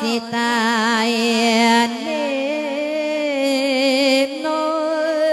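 A single voice chanting an Isan verse for inviting the spirit of the dead, drawn out in long held notes with a wide, wavering vibrato and slow glides between pitches.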